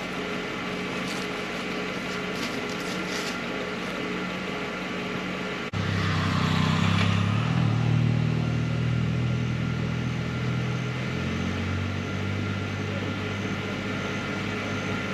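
Motor vehicle engines on the road: a steady engine hum, then about six seconds in a louder, deeper engine sound cuts in suddenly and eases off slowly over the following seconds.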